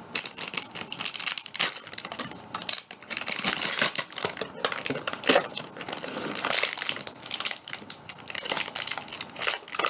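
Plastic packaging crinkling and crackling in irregular handling noise as soft modeling clay is worked out of its freshly cut-open wrapper.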